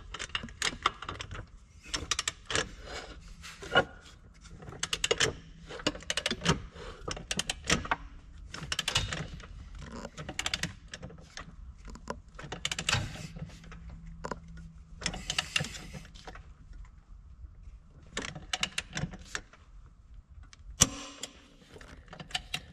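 Click-type torque wrench ratcheting on the primary clutch bolt: runs of quick ratchet clicks with metal knocks and taps from the wrench and clutch holder bar, and one sharp, louder click near the end.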